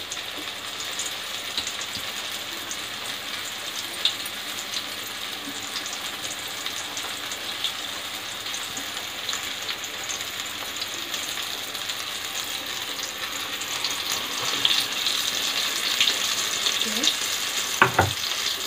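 Flour-coated chicken breast shallow-frying in oil in a nonstick pan: a steady sizzle full of small crackles, growing a little louder in the last few seconds. Near the end a short knock and louder burst of sizzle as a second piece goes into the pan.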